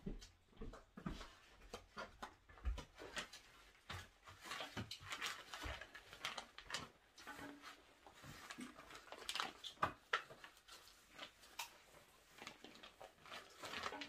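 Faint, irregular wet clicks and smacks of eating, a couple to several a second.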